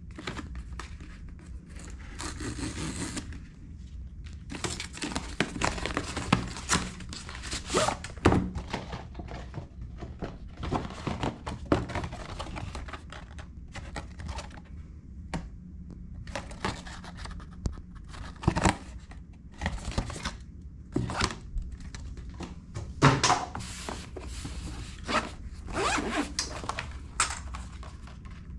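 GoPro Hero10 Black box and packaging being opened and handled: irregular rustling, tearing and scraping of plastic and cardboard, broken by sharp thunks of things knocked or set down on a desk.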